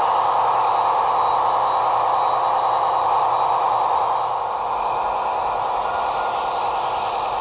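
HO scale DF3 diesel model locomotive running, heard close up from on board: a steady whirring running noise that drops slightly about four seconds in.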